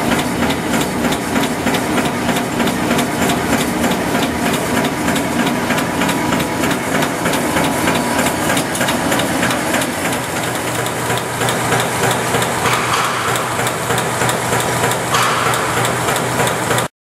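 Iowa-style high-speed barbed wire machine running: a fast, dense clatter over a steady hum. The sound cuts off suddenly at the very end.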